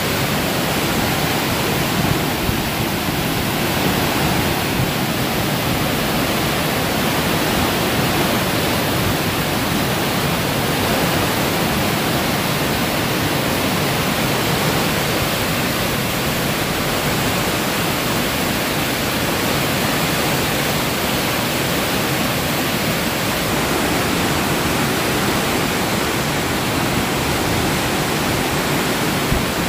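Fresh water pouring in beneath a partly opened hydraulic sluice gate, churning into foaming rapids. It makes a loud, steady rushing sound.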